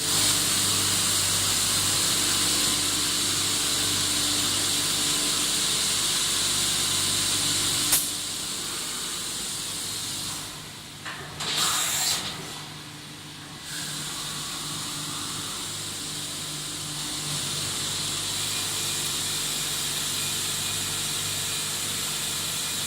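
Mori Seiki SV-500 machining center running: a steady hiss over a low hum, with a sharp click about eight seconds in. Near the middle the hiss drops away for a few seconds, broken by a brief louder burst, then comes back.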